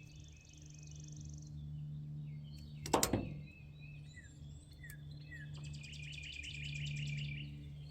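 Songbirds chirping and trilling, with a rapid pulsed trill near the end, over a low steady hum. A single sharp click, the loudest sound, comes about three seconds in.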